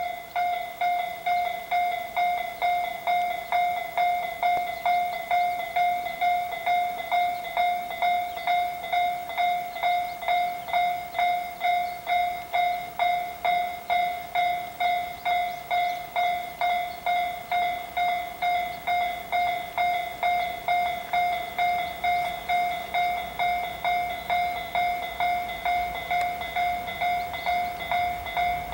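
Railway level-crossing warning bell ringing steadily at about two strikes a second, signalling an approaching train. Near the end the low rumble of the approaching freight train, hauled by two EF64 electric locomotives, rises faintly beneath it.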